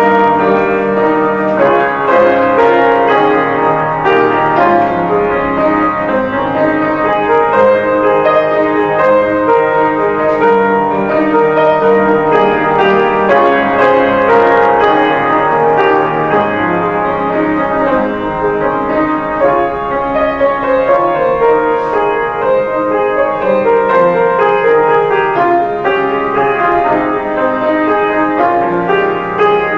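Grand piano played solo, a continuous piece of many sustained notes and chords at an even level.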